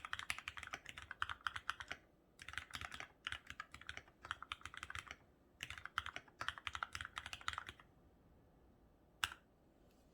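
Typing on a COX CK87BT mechanical keyboard with lubed, retooled Cherry MX Black linear switches, foam-dampened, with Cherry-profile keycaps. There are three runs of fast keystrokes separated by short pauses, then a single louder keystroke near the end.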